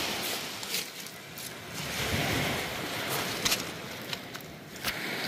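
Sea surf washing on the shore, swelling and easing, with wind buffeting the microphone and a few short clicks.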